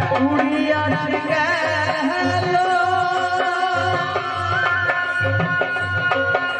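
Live folk song played through a PA: a man sings over a plucked dotara and a hand drum. The drum keeps a steady beat, and his voice comes in about a second in with wavering, ornamented lines.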